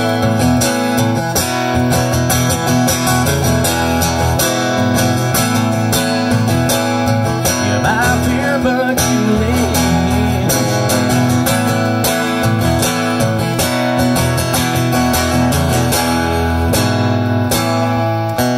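Country band playing the song's instrumental outro: guitars strumming over a steady beat, with no singing.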